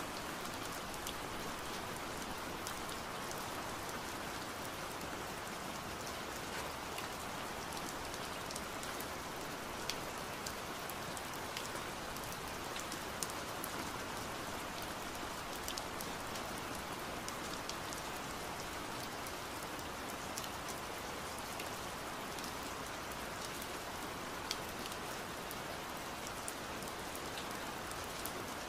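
Steady rain: an even hiss with many scattered drop ticks.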